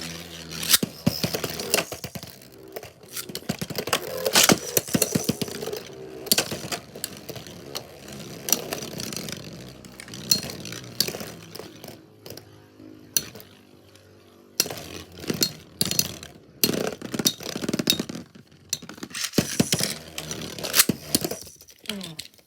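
Beyblade spinning tops, Lightning L-Drago and Galaxy Pegasus, scraping around a plastic stadium and clashing with many sharp clicks and knocks. There is a quieter stretch about halfway through.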